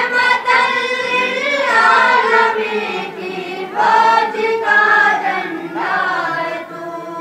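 Singing of an Urdu tarana, voices holding long, wavering notes in several phrases, with a short break about three seconds in and the singing fading near the end.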